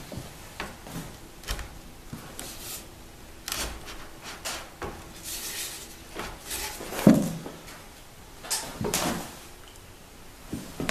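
A wooden tenon being pushed down into a mortise in a timber beam for a first test fit: wood rubbing and scraping against wood, with scattered knocks and one loud thump about seven seconds in. The fit is tight but goes almost all the way.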